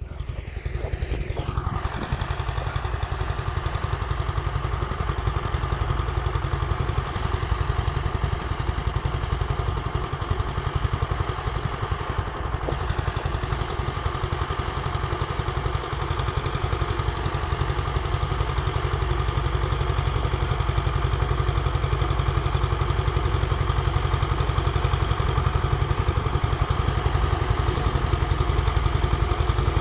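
Tractor diesel engine running steadily at a constant speed, pulling in first gear.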